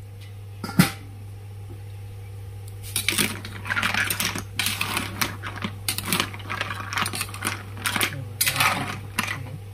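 Hard clam shells clinking and clattering against a metal slotted ladle and the wok as boiled white clams are scooped out of the boiling water. One sharp click comes about a second in, then rapid, irregular clinking from about three seconds on.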